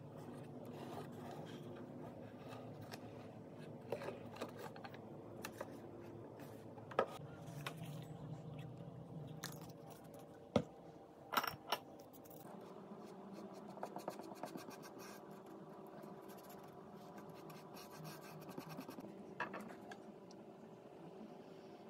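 Faint handling noises of a popsicle-stick model. Then, around the middle, a few sharp clicks from a plastic acrylic paint bottle as white paint is squeezed onto a saucer. In the second half, a paintbrush makes soft, scratchy strokes as it paints the wooden sticks.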